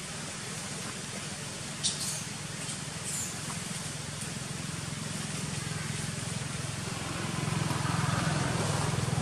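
Steady outdoor background noise with a low hum that grows louder toward the end, and a short sharp click about two seconds in.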